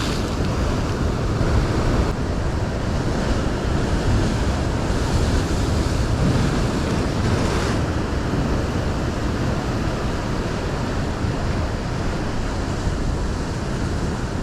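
Strong wind buffeting the microphone, with waves washing in behind it: a steady, dense rush that swells slightly now and then.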